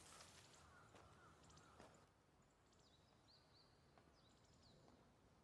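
Near silence: a faint outdoor ambience with a few soft, high birdlike chirps, mostly in the second half.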